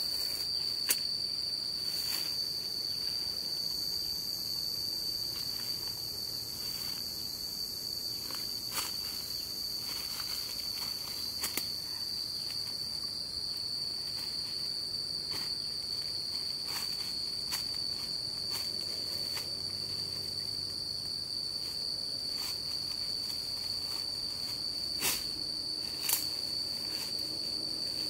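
Steady, high-pitched drone of insects in the forest, with scattered crackles and snaps of footsteps through dry leaf litter and brush; two louder snaps come near the end.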